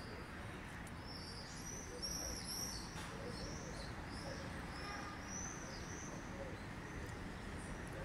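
Many birds calling at once: a run of short, high-pitched arched notes, thickest a couple of seconds in, over a low steady rumble.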